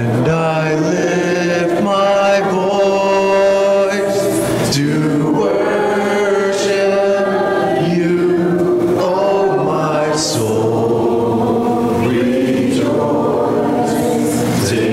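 A church congregation singing a hymn together in held, sustained notes, the words carried by many voices at once.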